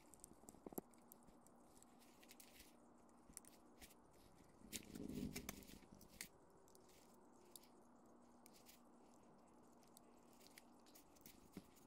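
Faint small clicks and scrapes of a screwdriver working screws into a vintage Metabo electric drill's housing while the drill is turned in the hands, with a brief louder knock and rustle about five seconds in.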